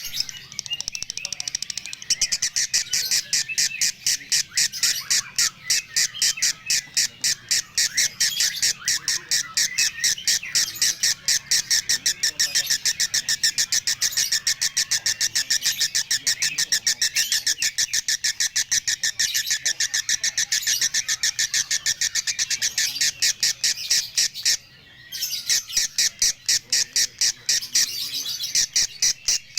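Lovebird singing a long, unbroken run of rapid high chirps, several a second, in the 'konslet' style: an odd, extreme song. It breaks off briefly about 25 seconds in, then carries on.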